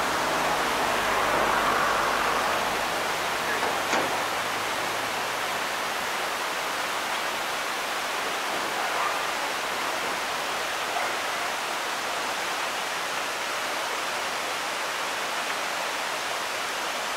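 Tall waterfall running, an even, steady rush of falling water, with a faint click about four seconds in.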